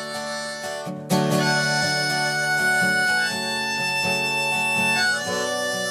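Harmonica playing long held notes over acoustic guitar strumming, an instrumental break between sung verses. The harmonica comes in loudly about a second in and drops back near the end, leaving the guitar chords.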